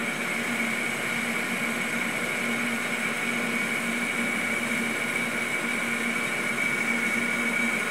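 Emco V13 metal lathe running under power feed while a boring bar cuts the bore of a steel die: a steady high whine over a lower hum.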